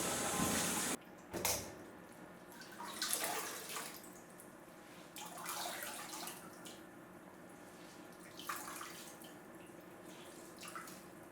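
Water running from a tap, shut off about a second in, followed by scattered splashes and drips of water.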